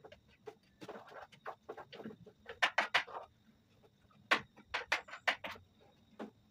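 A spoon stirring vegetables in a cooking pot, knocking and scraping against the pot in irregular short clicks, busiest around three seconds in and again a little after four seconds.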